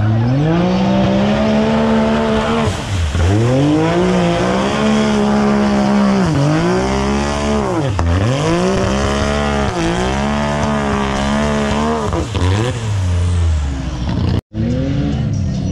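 Big-tire mud racer's engine revving hard, its pitch climbing and dropping again and again as the driver works the throttle through the mud hole. The sound cuts out for an instant near the end.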